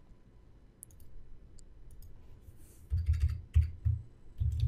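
Typing on a computer keyboard: a few faint clicks, then from about three seconds in a quick run of keystrokes with low thumps, as a file name is typed.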